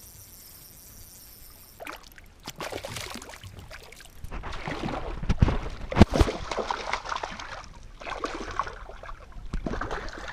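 Water splashing irregularly as a hooked trout thrashes at the surface while it is brought in, with two strong splashes about five and six seconds in.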